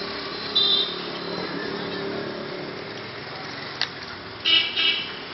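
Wok cooking on a gas burner: a steady rushing background with a sharp metallic clank about half a second in and a few more clanks of metal on the steel wok near the end.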